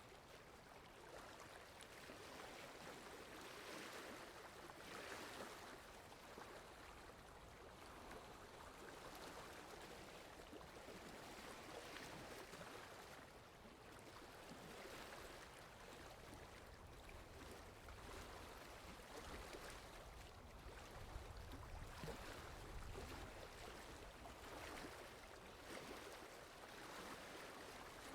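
Faint water lapping, swelling and falling back every two to three seconds. A low wind rumble comes in through the middle stretch.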